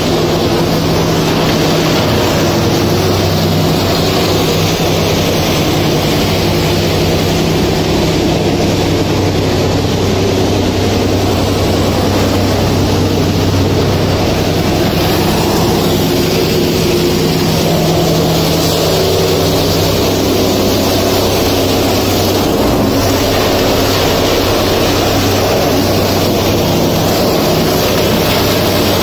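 Industrial shredding machinery running steadily while it shreds scrap into chips: a loud, constant mechanical drone over a steady low hum.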